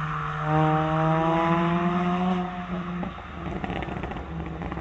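Car engine held at high revs, its pitch creeping up slightly, then dropping away about three seconds in to a rough rumble with a few crackles near the end.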